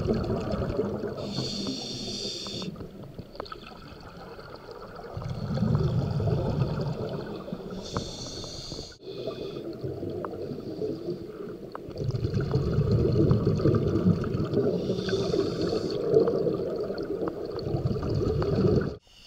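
Scuba diver breathing through a regulator underwater: short hissing inhalations alternate with long bubbling exhalations, about three breaths.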